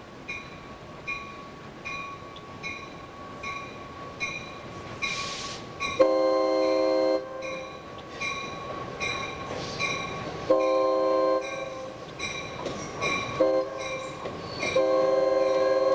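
Grade-crossing bell dinging steadily, about twice a second, as a GP9 diesel locomotive approaches and sounds its multi-tone air horn. The horn gives two long blasts, a short one and a final long one still going at the end: the standard long-long-short-long grade-crossing signal.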